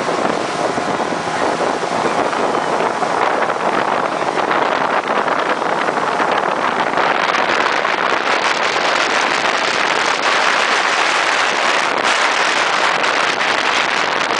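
Motorboat running at speed: a dense, steady rush of wind buffeting the microphone and of churning wake water, with no clear engine pitch standing out.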